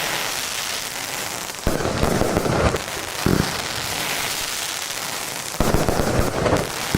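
Consumer firework battery firing: three clusters of quick bangs, about a second and a half in, again near three and a half seconds, and near six seconds, with a steady crackling hiss between them.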